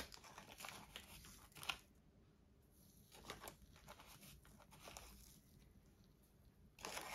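Near silence broken by a few faint crinkles of a small plastic zip bag, as a plastic spoon is dipped into citric acid powder inside it.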